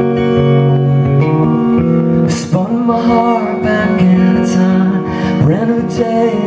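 Live band music from the slow opening of a rock ballad: guitar chords ring on held notes. A male voice comes in over them about two seconds in.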